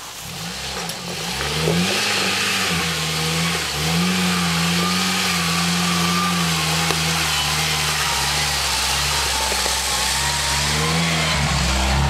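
Jeep Wrangler engine working under load up a steep rutted hill, its revs rising and falling as it crawls over the ruts. It grows louder over the first two seconds as it comes closer, then holds steady.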